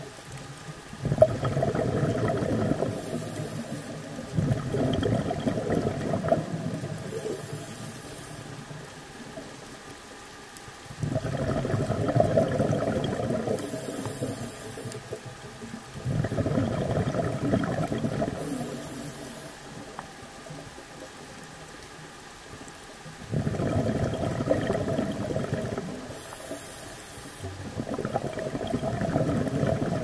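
Scuba diver breathing through a regulator underwater: exhaled bubbles gurgle in six long bursts of about three to four seconds each, with quieter pauses and brief high hisses between them.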